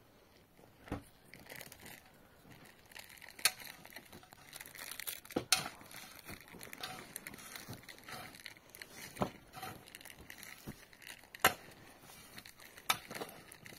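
Crinkling, rustling handling noise broken by several sharp, irregularly spaced clicks and knocks.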